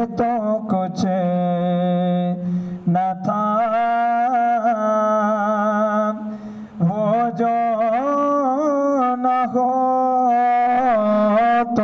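A man's voice sings an Urdu naat into a microphone: long held notes with wavering ornaments, broken by short breaths about three and seven seconds in. A steady low drone runs underneath.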